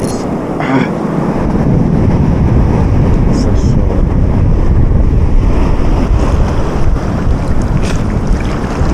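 Wind buffeting the microphone in loud low rumbles over the wash of choppy river water at the bank, with a few brief clicks.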